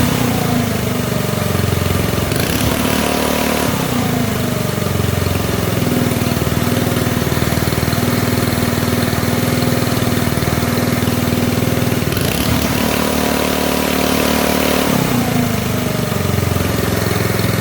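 Engine running at idle, revving up briefly about two and a half seconds in and again about twelve seconds in, each time dropping back to a steady idle.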